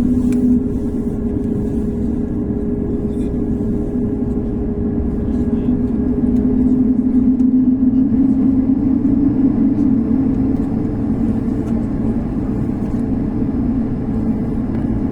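Airliner engines heard from inside the passenger cabin: a steady, loud drone with a low hum and a second, higher hum over a constant rumble, swelling slightly midway.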